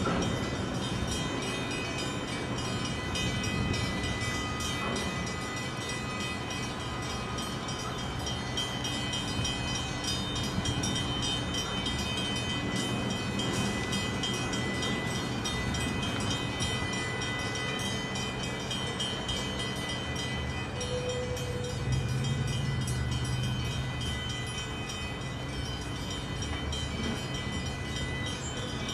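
Tugboat's diesel engines running steadily while pushing a grain barge at slow speed: a continuous low drone that swells briefly about three-quarters of the way through.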